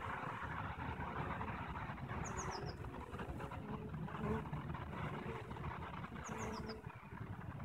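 Honeybees buzzing at a hive entrance over a low steady rumble, with brief louder buzzes as bees fly close. A small bird gives a quick run of four high descending notes twice, about two seconds in and again about six seconds in.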